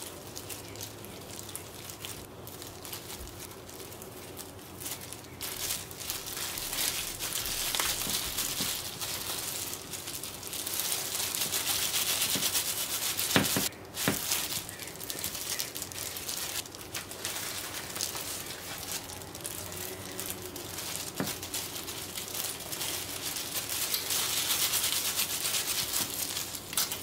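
Kitchen food-preparation sounds for gimbap: rustling and crinkling handling noise that swells twice, with a few sharp knocks about halfway through.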